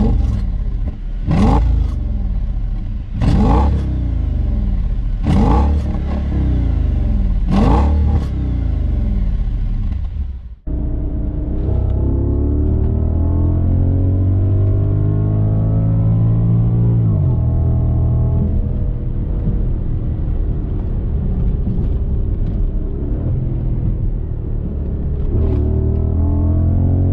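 Audi S8's 5.2-litre V10 revved hard five times, each blip rising and falling quickly. About ten seconds in, it cuts to a duller recording of the car accelerating under load, the engine pitch climbing slowly and dropping at a gear change before climbing again.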